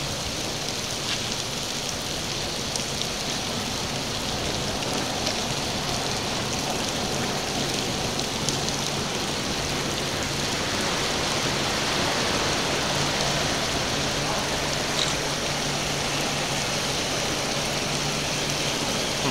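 Steady rain hiss, with a low steady hum underneath and a few faint ticks.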